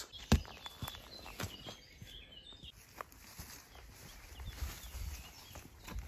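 Footsteps on a woodland path, with a few sharp snaps and crunches from twigs and leaf litter underfoot in the first half. Faint birdsong chirps about two seconds in.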